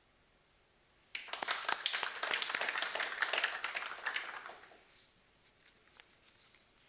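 Applause from a small group of people clapping, starting suddenly about a second in and fading out a few seconds later.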